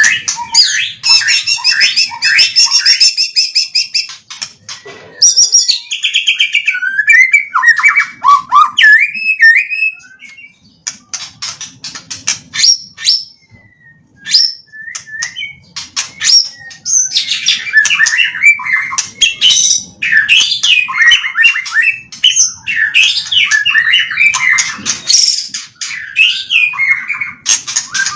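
White-rumped shama (murai batu) singing a loud, varied song of whistles, trills and rapid chattering, drawn from its repertoire of learned phrases. A sparser stretch of scattered clicks comes in the middle.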